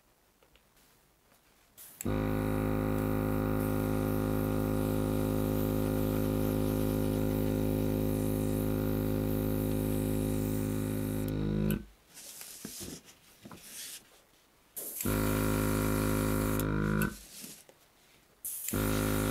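Oasser mini airbrush compressor's small battery-powered motor humming steadily with the hiss of air from the airbrush as paint is sprayed. It runs for about ten seconds, then in two shorter runs of about two seconds. Each run starts and stops abruptly.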